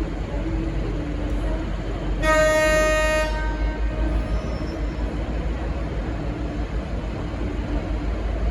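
Leslie RS5T air horn on a V/Line N class diesel locomotive sounding one short blast of about a second, a little over two seconds in, over the steady low rumble of the running locomotive.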